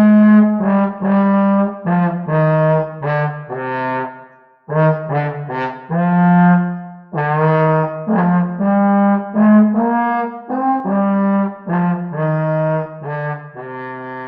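Trombone playing a Christmas carol melody, one note at a time, with a short pause for breath about four and a half seconds in and a held note near the end.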